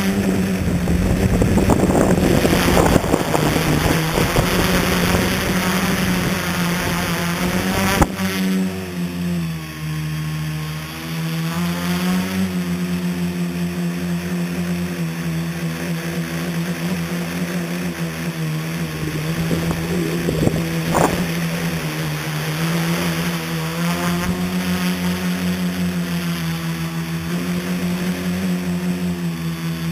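Scratch-built tricopter's three motors and propellers whirring in flight, heard from its onboard camera, the pitch rising and falling as the throttle changes. A rushing noise runs through the first few seconds, and there is a sharp click about eight seconds in.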